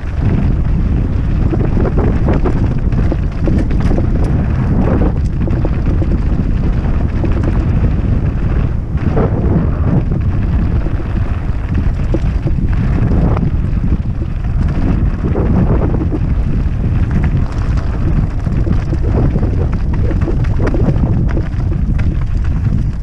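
Heavy wind rumble on a helmet camera's microphone while a Coluer Poison hardtail mountain bike rolls down a loose, rocky trail, with irregular clatters of the tyres over stones.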